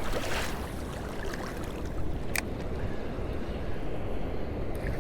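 Steady wind noise on the microphone with river water in the background, and one sharp click about two and a half seconds in.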